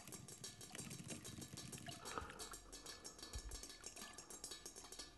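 Faint rapid clicking of typing on a laptop keyboard.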